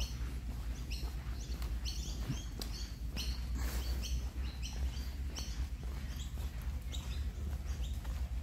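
Birds calling with many short, high chirps, about two a second, over a steady low rumble.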